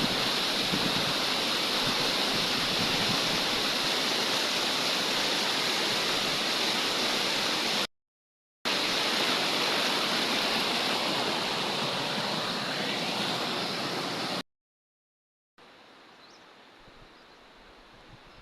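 Waterfall rushing steadily and loudly, cut by two brief gaps of silence. After the second gap, about 15 seconds in, it gives way to a much quieter background with a few faint high chirps.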